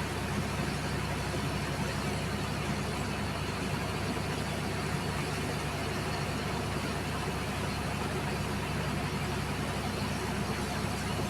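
An engine running steadily at an even speed under a continuous hiss, typical of the pump and water jet at work on a sand barge.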